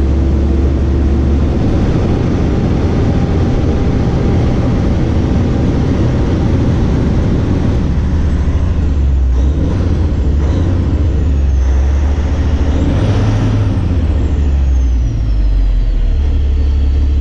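Cummins diesel engine in a semi truck running steadily at idle with a constant deep hum, its high-pressure fuel pump freshly rebuilt with new plungers, barrels and tappets; it runs evenly and sounds good, with no check engine light.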